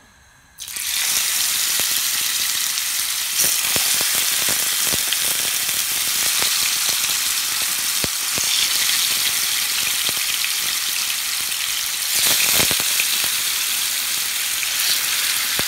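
Marinated lamb chops sizzling as they shallow-fry in hot oil in a frying pan. The sizzle starts suddenly about half a second in as the chops go into the oil, with scattered crackling pops and a louder stretch about three-quarters of the way through.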